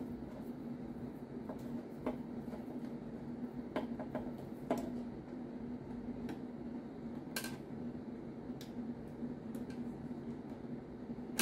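Screwdriver and hands working screws inside a sheet-steel network switch chassis: irregular small metal clicks and taps, spaced a second or more apart, with the sharpest about seven seconds in, over a steady low hum.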